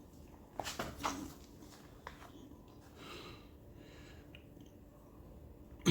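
A few light clicks and faint rustling from handling metal band clamps while fitting them onto a CV joint boot, with a sharper click at the very end.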